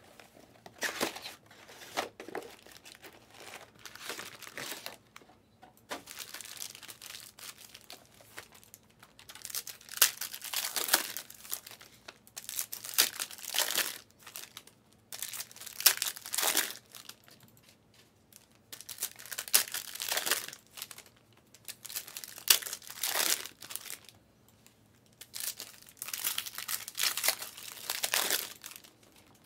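Trading card pack wrappers being torn open and crinkled by hand, in repeated bursts with short quiet gaps between.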